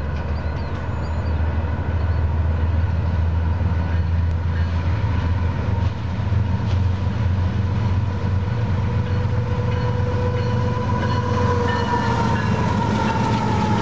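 Union Pacific diesel freight locomotives working under power, with a steady deep engine drone. A whine comes up in the second half and drops in pitch near the end as the engines pass.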